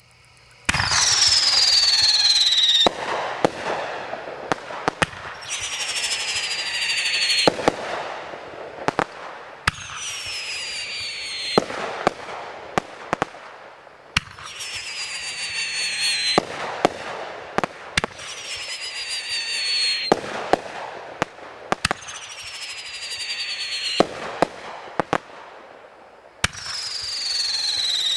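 Shelton 'Rosa's Revenge' multi-shot firework firing shot after shot, about one every two seconds. Each shot carries a whistle falling in pitch and ends in sharp bangs and crackling pops as the shells break into stars and crossettes.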